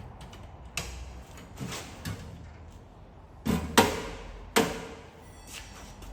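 A series of knocks and scraping clatters as items and drawers are handled and set down, about six in all, with the two loudest sharp knocks a little past the middle.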